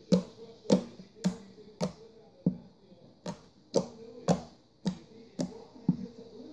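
Very sticky shaving-cream slime being squeezed and pressed by fingers, giving sharp clicks and pops about twice a second.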